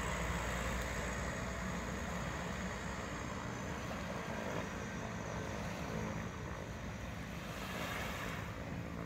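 A distant seaplane's propeller engines droning steadily as it taxis out across the water.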